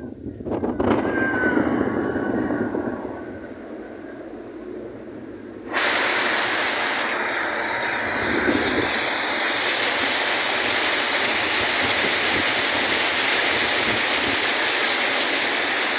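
Heavy rain and rushing floodwater: a steady hiss of water. About six seconds in it suddenly becomes louder and brighter and holds there.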